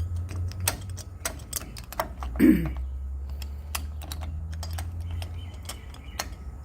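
Irregular small clicks and taps of deadbolt lock parts being handled and fitted into the door, over a steady low hum. A short falling-pitched sound, the loudest moment, comes about two and a half seconds in.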